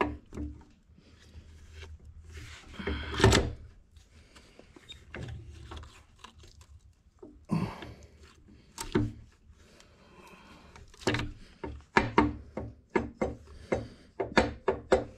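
Metal clunks and clicks of a differential carrier, with its bearings and shims, being pushed and rocked by hand into a Dana 30 axle case. The loudest knock comes about three seconds in, and a quick run of taps comes near the end. The carrier will not seat: the shims won't go down.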